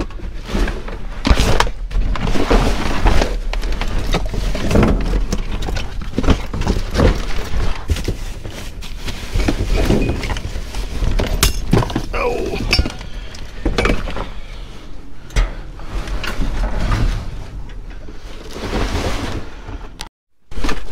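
Rummaging through trash by hand: plastic bags and wrap crinkling and crackling, with cardboard boxes, plastic bins and wooden boards being shifted and knocking together throughout. The sound cuts out briefly near the end.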